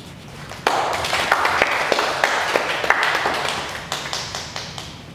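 Audience applauding after a poem is read: the clapping starts suddenly about a second in and dies away near the end.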